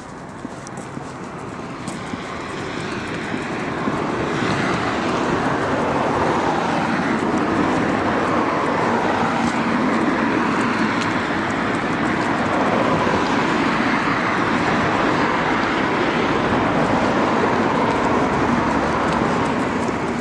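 Steady road traffic noise, a continuous rush that builds over the first few seconds and then holds.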